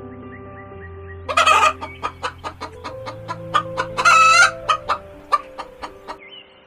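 Chicken clucking in a quick run of sharp short clucks, with two louder harsh calls, about a second in and about four seconds in. Soft background music plays under it.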